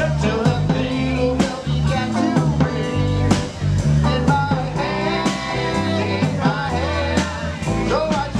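Live band playing: electric guitar, electric bass and drum kit, with a voice singing over a steady bass line and regular drum beats.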